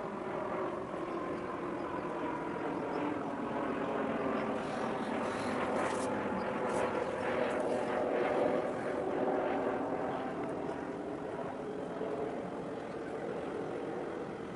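A steady engine drone made of several tones. It swells to its loudest about halfway through and then eases off, its pitch sinking slightly.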